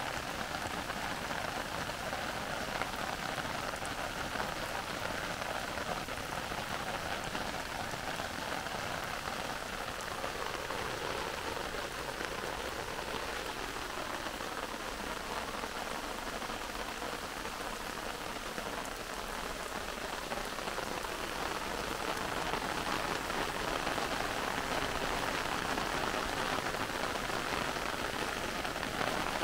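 Heavy rain falling through forest trees: a steady, dense hiss of drops that grows a little louder over the last third.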